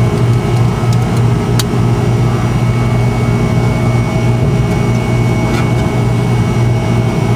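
Steady mechanical hum from running machinery: a low drone with a faint high whine held over it. A light click about one and a half seconds in.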